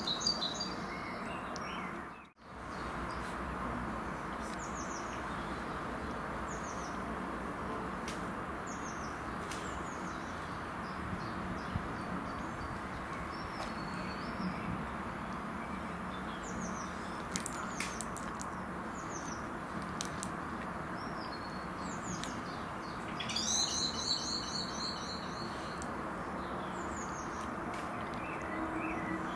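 Small songbirds chirping: scattered short high calls, and a fast trill of repeated notes lasting about two seconds near the end, over a steady background hiss.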